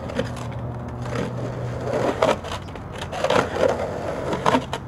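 Skateboard wheels rolling on concrete, with several sharp knocks and slaps of the board hitting the ramp and the ground as the rider lands. The loudest knock comes a little over two seconds in.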